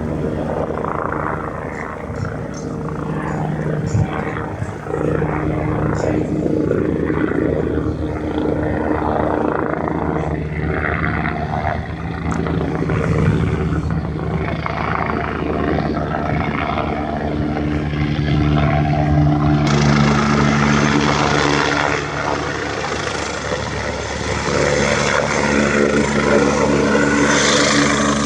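Helicopter running steadily, engine and rotor noise with a constant droning pitch; a louder hiss joins in about twenty seconds in.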